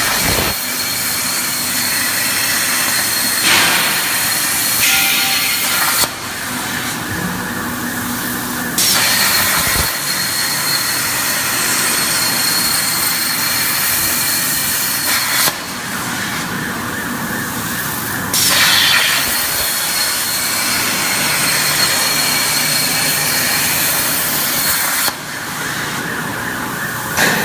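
CNC plasma cutter's arc hissing loudly with a thin high whistle, its hiss dropping out three times for two to three seconds each while a lower machine hum carries on.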